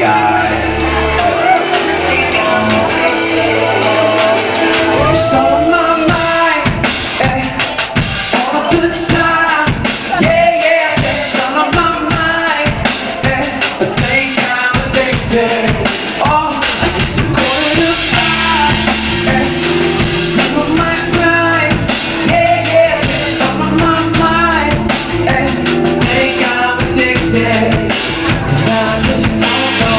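Live band music: a male vocalist singing over a drum kit beat, with bass notes growing fuller about halfway through.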